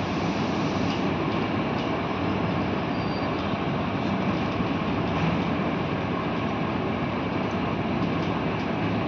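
Steady, even rushing noise with a few faint ticks and no speech.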